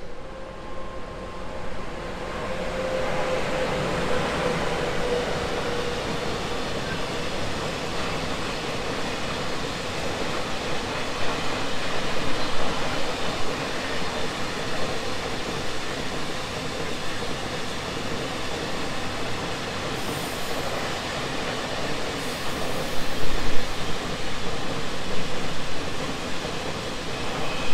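Freight train of loaded flatcars rolling past: a steady rumble and clatter of wagon wheels on rail, with a faint falling whine in the first few seconds and heavier clatter about 23 seconds in.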